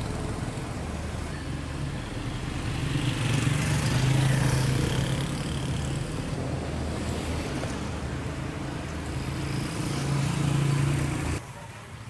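Street traffic: motorcycle and auto-rickshaw engines running and passing close, swelling about four seconds in and again around ten seconds. The traffic drops to a quieter background hum shortly before the end.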